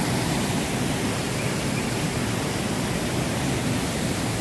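Small waterfall on Falling Creek pouring steadily, a constant rushing of water.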